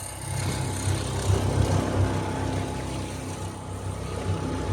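Small 5-horsepower outboard motor running steadily, pushing a boat slowly across the water.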